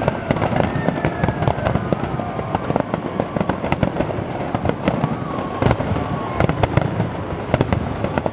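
Large fireworks display going off in a dense, continuous barrage of bangs and crackles, many shells bursting in quick succession.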